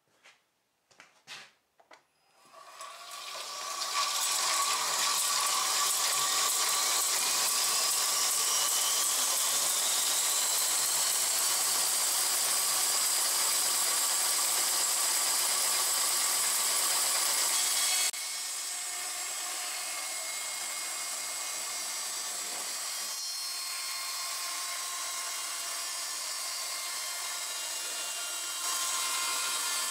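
Circa-1915 Hall and Brown No. 2 36-inch bandsaw resawing a 10-inch-wide board. After a few light knocks, the cut builds up within a couple of seconds into a loud, steady hissing whine, with a tone rising in pitch for several seconds. The sound drops suddenly about two-thirds of the way through and steps up again near the end.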